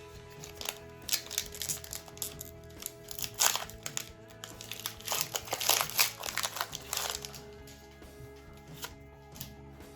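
Foil trading-card booster pack wrapper crinkling in quick clusters as it is handled and torn open, loudest about a third and about halfway in, then stopping about three quarters through. Quiet background music plays underneath.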